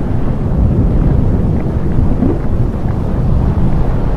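Steady deep rumble of an erupting volcano, with a few faint crackles scattered over it.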